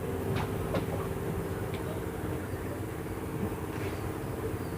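A motor running steadily with an even, low hum, with a few faint short chirps or ticks about half a second in.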